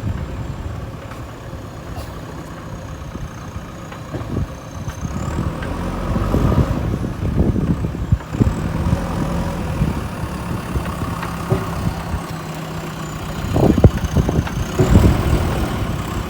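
JCB backhoe loader's diesel engine running, with a thin high whine that drifts up and down in pitch and scattered clanks and knocks. It gets louder around halfway and again near the end.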